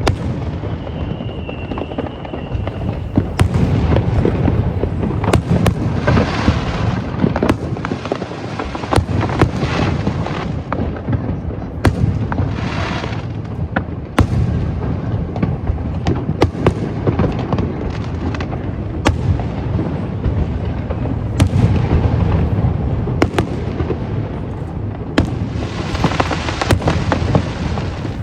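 Fireworks display: a constant low rumble of booms, with many sharp cracks and bangs and several hissing, crackling bursts lasting about a second each.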